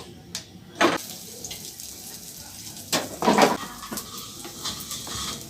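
Cookware and metal utensils clattering in a pan: a sharp clatter about a second in and a longer one around three seconds in. A steady hiss of food frying runs underneath.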